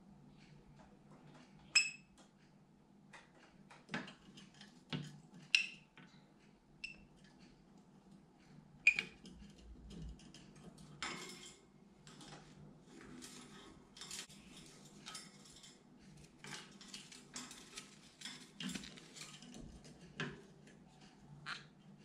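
Light metallic clinks and taps, each ringing briefly, scattered through the first half, then a run of scratchy scrabbling. These are a green cheek conure's beak and feet on its wire cage and perch fittings as it climbs about, with no screaming.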